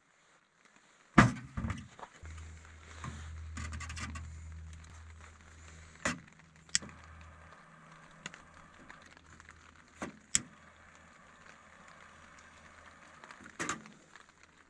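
Split firewood knocking and clattering against a small metal tent wood stove as sticks are loaded into its firebox. A sharp knock a little over a second in is the loudest, with scattered lighter knocks after it. A low steady hum is heard for a few seconds early on.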